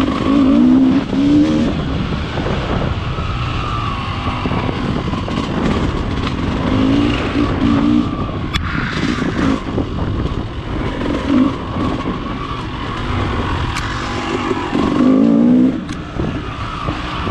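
Dirt bike engine running along a trail, throttle opening and easing off, with louder bursts of throttle near the start, about halfway through and near the end. Wind rushes over the helmet-mounted microphone, with a few sharp ticks.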